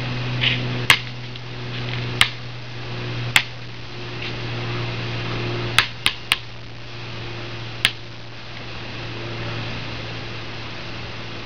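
A basketball striking hard surfaces, with seven sharp impacts spaced irregularly, including three in quick succession about six seconds in. A steady low hum sits underneath.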